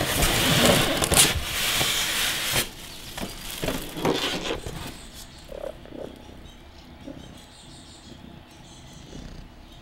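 Polystyrene foam packing insert scraping and rustling against a cardboard box as it is lifted out, loudest in the first two or three seconds, followed by quieter rustling of plastic wrap.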